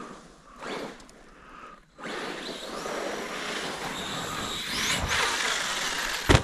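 Radio-controlled Kraton monster truck running through wet snow: its electric motor whines higher as it speeds up, over a steady noisy rush. A single sharp knock comes near the end.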